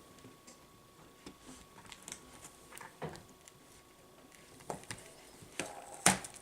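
Faint scattered clicks and taps of a laptop display panel and its plastic housing being handled, with a sharper click about six seconds in.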